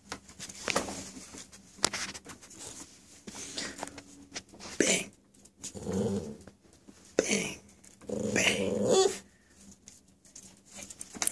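A small puppy growling and grumbling in several short bouts, the longest lasting about a second near the end, with a few sharp clicks between the bouts.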